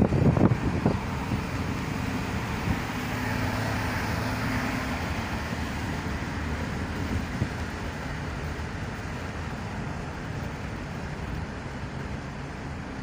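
Steady road noise from inside a moving vehicle: engine and tyre rumble with some wind, and a short louder burst in the first second.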